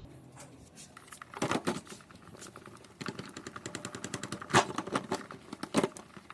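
Rapid, dense clicking and tapping of small hard objects, with a few louder knocks about a second and a half in, around four and a half seconds, and near the end.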